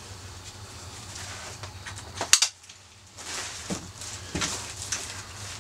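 Nylon Condor Recon chest rig being adjusted on the body: rustling handling noise with one sharp click a little over two seconds in, over a steady low hum.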